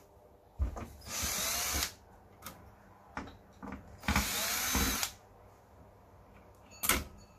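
Handheld electric screwdriver running in two short bursts, each whining up in pitch as the motor spins up, as it drives screws on a TV power supply board. Clicks and knocks of handling come in between, with a sharp click near the end.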